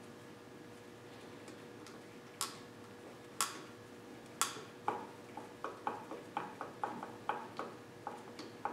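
Screwdriver working a small fastener on a wooden board: three sharp clicks about a second apart, then a quicker run of lighter clicks, about three or four a second, from about halfway through.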